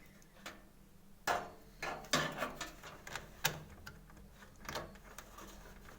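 Irregular small plastic clicks and taps of front-panel connector leads being handled and pushed onto motherboard header pins, the loudest about a second in.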